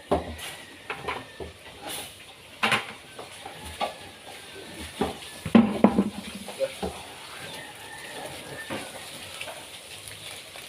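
Irregular knocks and clatters, about a dozen over the first seven seconds, loudest about five and a half seconds in, with a short low sound among them.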